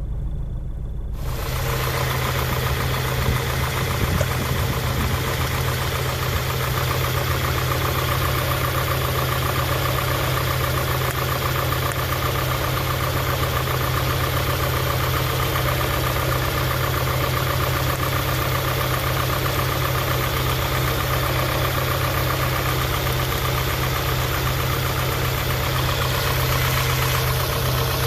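A 1991 Honda Prelude Si's B21A1 2.1-litre four-cylinder engine idling steadily and roughly. The owner judges the rough idle to be a misfire that new spark plug wires have not cured.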